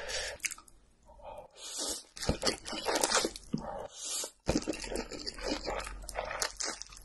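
Close-miked crunching and chewing of a mouthful of dry, crispy ramen-noodle snack (Ppushu Ppushu barbecue flavour): dense, sharp crackles that pause briefly about a second in and again past the middle.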